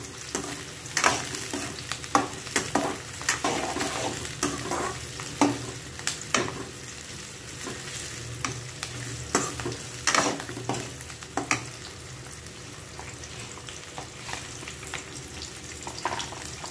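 Sliced onions sizzling in hot oil in a metal kadai as they are fried toward golden, with a metal spoon scraping and knocking against the pan as they are stirred. The stirring strokes come often at first and thin out after about twelve seconds.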